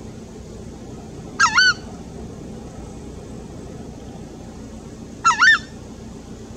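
Southern screamer calling: two loud, short two-note calls about four seconds apart.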